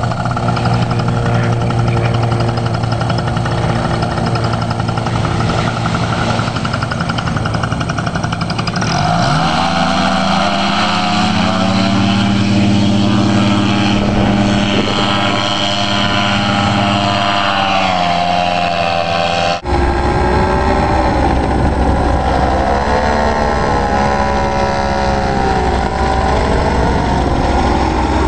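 Paramotor engine and propeller running at low throttle, then opened up about nine seconds in, its pitch rising and holding high for the takeoff run. After a sudden cut the engine drones on in flight, its pitch rising and falling.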